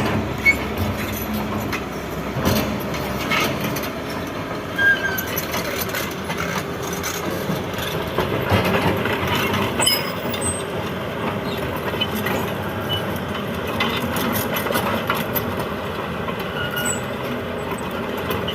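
Heavy machinery at work, an excavator loading a dump truck with base course: a steady engine din with occasional knocks.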